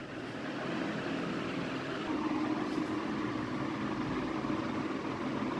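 Steady mechanical hum of room background noise, a little stronger from about two seconds in.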